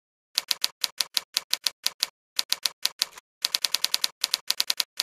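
Typewriter keys clacking in quick runs of keystrokes, about seven or eight a second, with a couple of short pauses. It starts about half a second in.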